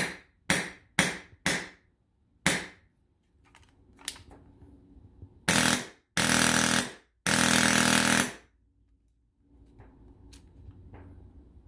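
Krytac PDW airsoft rifle with a Wolverine Inferno 2 HPA engine firing: five single semi-auto shots in about two and a half seconds, then three short full-auto bursts, the last two about a second each.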